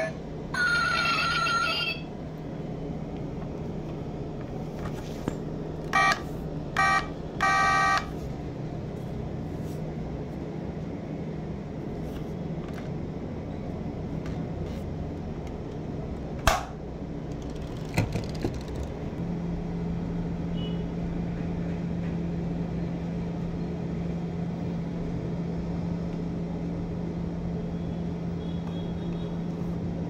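Electronic sound module of a die-cast Audi scale model: a short electronic tone near the start, then three quick beeps between about six and eight seconds in, over a steady low hum. A sharp plastic click about halfway through as the model's door is opened.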